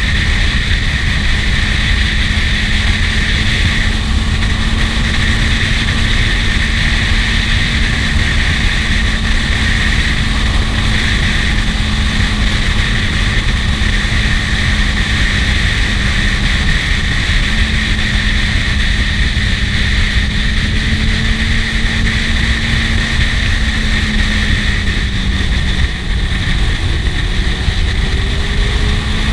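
Kawasaki Z750S inline-four engine running at a steady cruise under heavy wind rush. The engine note drops briefly about 25 seconds in, then climbs again.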